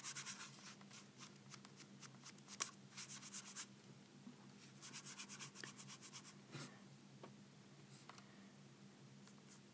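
Faint, quick scratchy strokes of a watercolour paintbrush scrubbing on paper, in several bursts during the first seven seconds, over a steady low hum.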